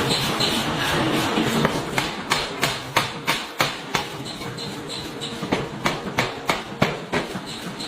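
Pneumatic forging hammer working metal: a steady clattering din, then, from about two seconds in, a quick run of sharp separate blows, several a second and uneven in strength.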